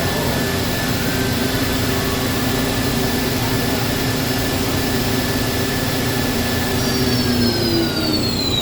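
Mori Seiki NH-6300DCG II horizontal machining center's spindle running at about 7,800 rpm with a steady whine over the machine's hum. About seven seconds in it starts to spin down, its pitch falling.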